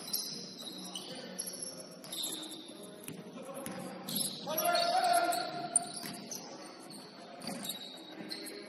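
Pickup-style basketball game sounds: a basketball bouncing on the court, sneakers squeaking, and players' voices, with a louder stretch about halfway through and one sharp thud just after it.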